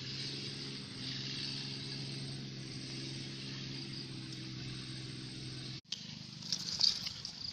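A small engine running steadily with an even, unchanging hum, cut off abruptly about six seconds in. After that come faint scattered clicks and crackles.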